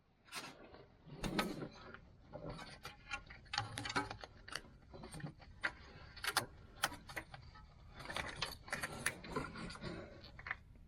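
Irregular clicks, taps and knocks with some rustling: hands and tools handling parts while working on a starter replacement in the wheel well.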